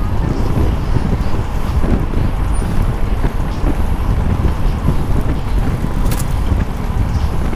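Steady wind rush and road noise on the microphone of a helmet-mounted GoPro Hero 4 on a moving bicycle, heaviest in the low end.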